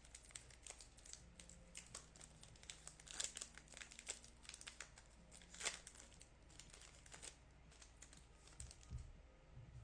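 Faint crinkling and tearing of a trading card pack's foil wrapper as it is opened, a run of quick crackles that stops about a second before the end.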